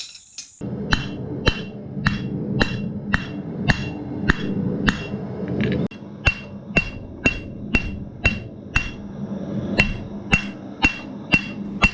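Blacksmith's hammer striking steel bar stock on an anvil about twice a second, each blow with a short ring, flattening the material for a strap hinge. A steady low hum runs beneath the first half and stops about six seconds in.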